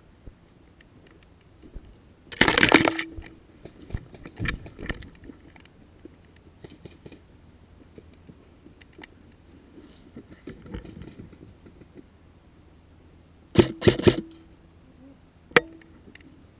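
Airsoft replica firing: a quick rapid burst about two and a half seconds in, a few scattered shots after it, then another tight burst of about four shots near the end and one last single shot. A brief low whir follows each burst.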